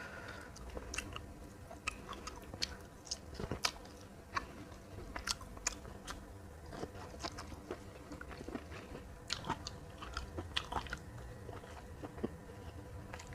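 A person chewing and biting into a meal of fried fish, green beans and rice close to the microphone, with irregular crisp crunches and clicks throughout.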